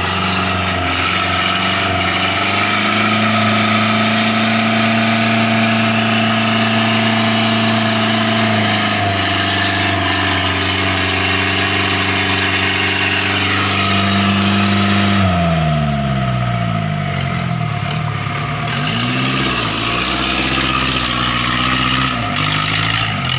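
A vehicle engine working hard at steady revs. About two-thirds of the way in, the revs drop and then rise and fall several times, like a vehicle struggling over a rutted, rain-damaged road.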